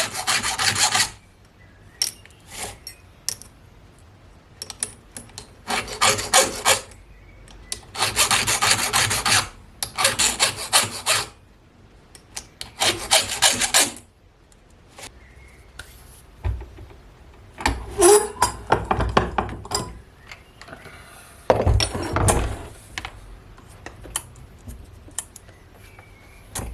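Hand file stroking across chainsaw chain cutters while the chain is sharpened: runs of quick rasping strokes about a second long with short pauses between, and a few dull knocks later on.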